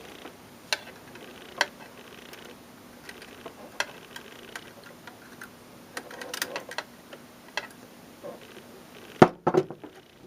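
Small clicks, taps and light rattles of hands working inside a cassette deck's tape mechanism while its old drive belt is pulled out, coming irregularly, with a louder knock and a brief rattle near the end.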